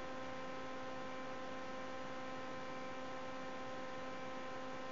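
Steady electrical hum made of several even tones over a faint hiss, unchanging throughout: the noise floor of the radio audio feed between transmissions.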